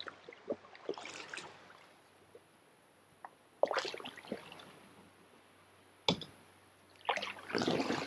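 Water splashing and sloshing against a small boat, coming in short bursts, with a sharp knock about six seconds in.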